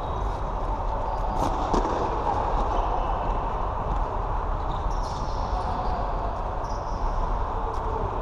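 Floorball being played in a sports hall: scattered knocks of sticks and the plastic ball, and short high squeaks of shoes on the court floor, over a steady hall din.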